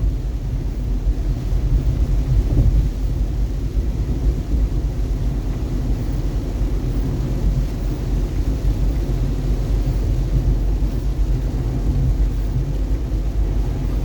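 Steady low rumble of a car driving on a freeway in heavy rain and gusty wind: tyre, road and wind noise.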